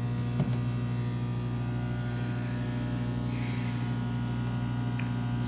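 Emerson microwave oven running mid-cycle, giving a steady electrical hum with a light click about half a second in.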